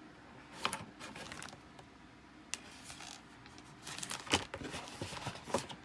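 A cardboard model kit box being handled and turned over, giving scattered light taps, clicks and rustles, busier in the second half.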